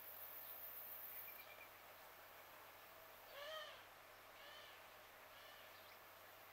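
Three short, faint animal calls about a second apart, each rising and falling in pitch, the first the loudest, over a quiet outdoor hiss.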